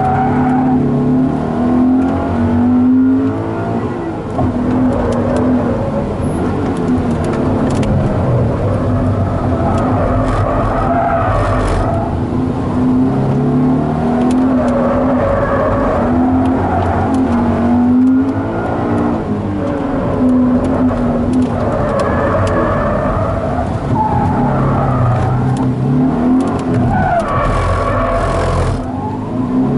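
Subaru BRZ's 2.0-litre flat-four engine on stock intake and exhaust, revving up and dropping off again and again under hard acceleration and lifts.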